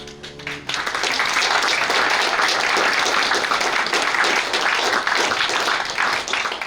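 Audience applauding: a few scattered claps over the last fading piano chord, then full, steady applause from about a second in.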